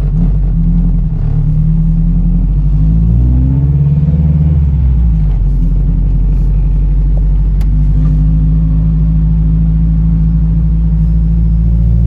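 Car engine and road noise heard from inside the cabin while driving, a steady low drone whose pitch rises about three seconds in as the car speeds up.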